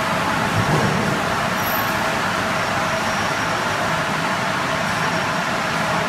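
5-gallon bottled water filling line running: a steady, even machine noise with a hiss and a faint high whine.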